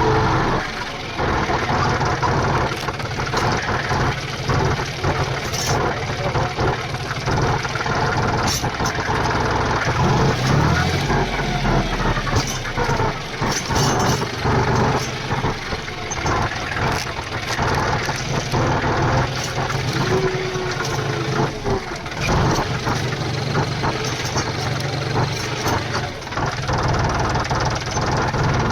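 Tractor diesel engine running steadily, with frequent short knocks and clanks over it.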